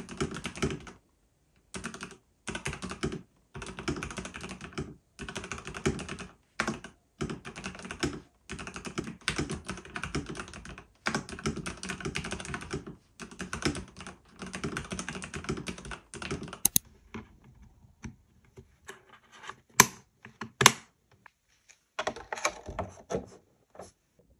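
Typing on a computer keyboard: fast runs of key clicks broken by short pauses, then slower, separate key presses with a couple of sharper clicks in the second half.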